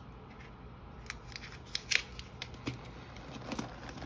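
Small clicks and taps from handling a plastic jewellery box and pressing it against the side of a plastic basket, the loudest click about two seconds in.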